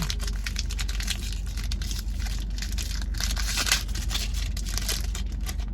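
Baseball card pack wrapper being torn open and crinkled: a dense run of crackling rips, loudest about three to four seconds in.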